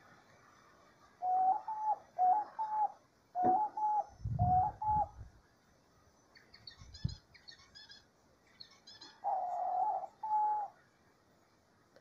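Diamond dove cooing: soft coos in pairs, each note stepping up slightly in pitch, four pairs in quick succession, then a pause and two longer coos near the end. Faint high chirps come in the pause.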